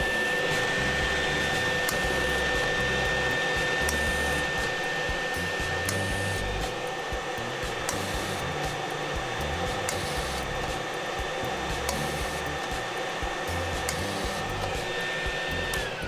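Blower of a Freund Flow Coater Mini fluid-bed granulator running with a steady high whine over a rush of air. It winds down near the end, the whine falling in pitch.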